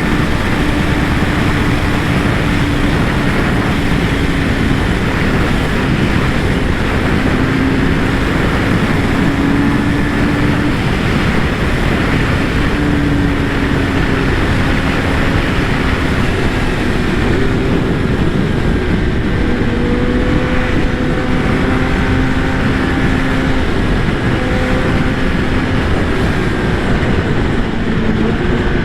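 Kawasaki ZX-10R inline-four engine running at a steady pace, its pitch drifting slowly up and down, under heavy wind noise.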